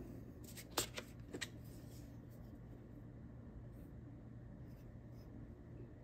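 Faint handling sounds of a STARESSO Discovery 2 coffee grinder's metal body being twisted apart: two sharp clicks in the first second and a half, then light ticking and rubbing.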